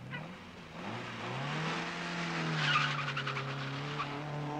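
Racing Mini's engine revving and pulling away from a standing start. The engine note rises about a second in and then holds steady, with a burst of tyre squeal around the middle.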